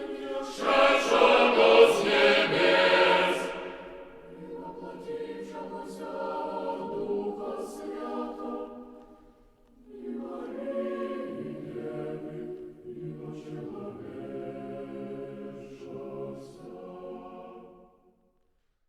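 Orthodox liturgical chant sung by a small choir, several voices holding long notes together. It swells loudest about a second in, breaks off briefly about nine and a half seconds in, then goes on more quietly and stops just before the end.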